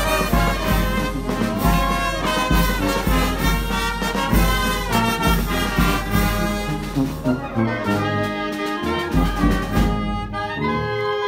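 Wind band of trumpets, saxophones, trombones and clarinet playing a tune together in full ensemble, the melody carried over a steady, regularly pulsing bass.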